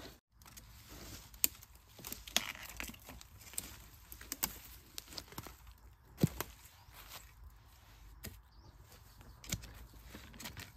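Irregular knocks and crunches of a long-handled digging tool working the soil at the base of a bamboo clump, with dry leaf litter rustling between strokes; the loudest knock comes about six seconds in.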